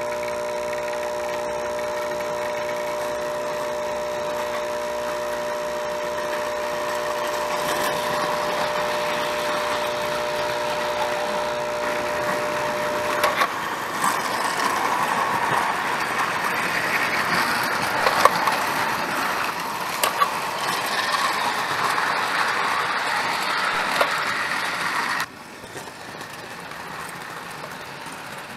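Antique Lionel electric toy trains running on tinplate track: a steady motor hum, then wheels rattling and clicking over the rail joints as the cars pass close by. The sound drops suddenly near the end.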